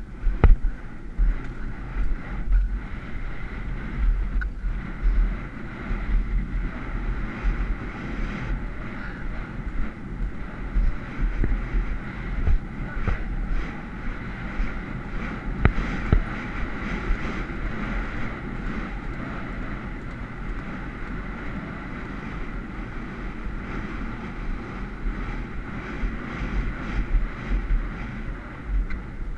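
Wind rushing and buffeting over a helmet camera's microphone as a horse gallops cross-country, with the irregular thud of hoofbeats underneath.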